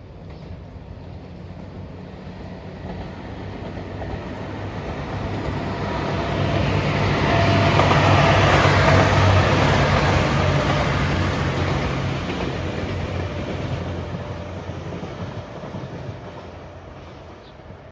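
A train passing the crossing, growing louder to a peak about eight to ten seconds in and then fading away, with a steady low drone under the running noise.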